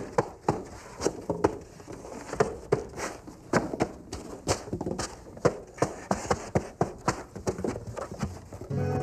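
Irregular sharp taps and knocks, a few a second, from rigid insulation boards being handled and set down into a wooden platform frame. Background music comes in near the end.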